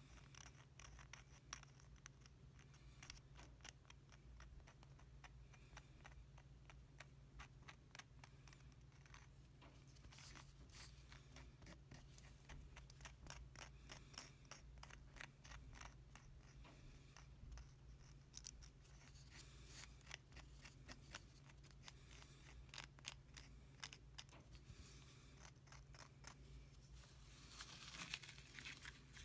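Faint scratching and ticking of a thin wooden stick stirring and scraping epoxy glue inside the hollow of a wooden shaving-brush handle. A louder scraping rasp comes near the end.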